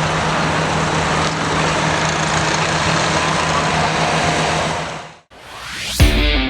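Engine of a pulling vehicle running hard and steadily at high revs under load. It cuts off abruptly about five seconds in, and guitar music starts near the end.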